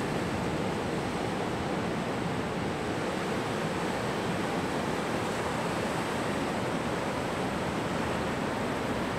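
Ocean surf breaking and washing in over a shallow beach, a steady rush of waves.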